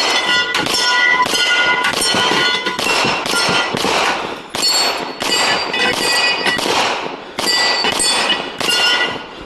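Rifle fired rapidly during a practical rifle stage, about two shots a second, each shot sharp and loud, with metallic ringing after many of them, as of steel targets being hit.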